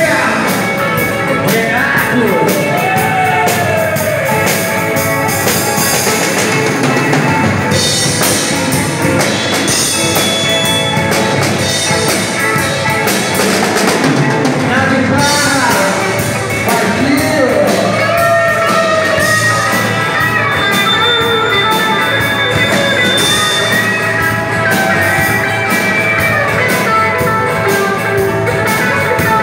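Live rock band playing loud: distorted electric guitar over a drum kit, with a singer.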